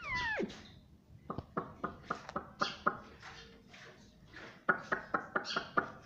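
Indian ringneck parrot calling: a falling whistled note at the start, then two runs of rapid short chattering notes, the second near the end and denser.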